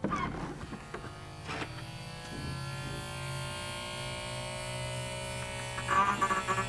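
Cadillac XLR power trunk lid opening: a click, then the electro-hydraulic pump motor humming steadily as it drives the lid up, turning louder and uneven near the end. It sounds like there is air in the hydraulic system.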